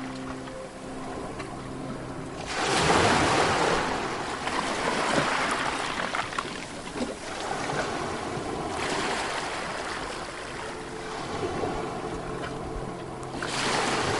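Sea waves breaking on a beach: a wave crashes about two and a half seconds in and its surf hisses and washes for several seconds, then another wave breaks near the end.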